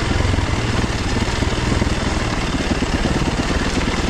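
Single-cylinder enduro motorcycle engine running steadily at a low, even pace, heard close up from the rider's position.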